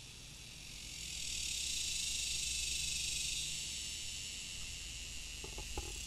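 Cicada chorus: a dense, high buzz that swells about a second in and eases off after the middle, over a low steady rumble of road traffic.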